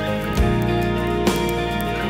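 Background music: sustained chords with a new note starting about once a second.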